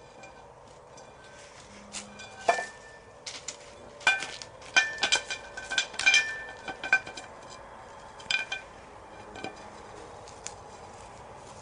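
Irregular metallic clinks and jingles, each leaving a short ringing tone. They come in clusters and are loudest about four to seven seconds in.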